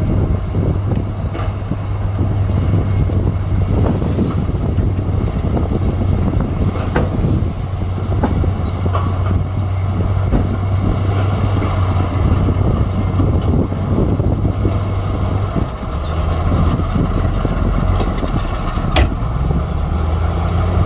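Heavy diesel engine of a LiuGong crawler bulldozer running steadily under load, with occasional sharp metallic clanks. The engine note shifts lower about three-quarters of the way through.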